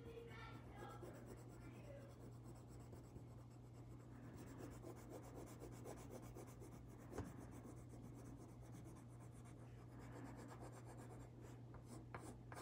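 Faint scratching of a brown coloured pencil on paper as it shades in an area, with a single light tap about seven seconds in.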